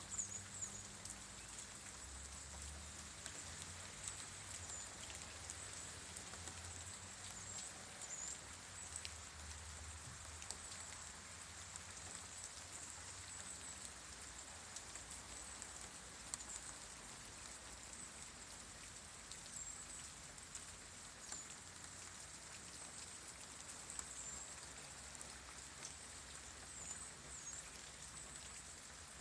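Steady rain falling, with many separate drops ticking close by. A faint high-pitched whine with small chirps on it runs underneath.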